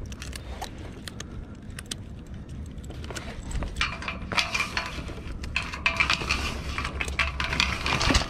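Small metal sailboat rigging fittings at the mast base, shackles and sail slides, clinking and rattling as they are handled by hand. The clicks are scattered at first, then become a dense clatter about three seconds in, loudest near the end.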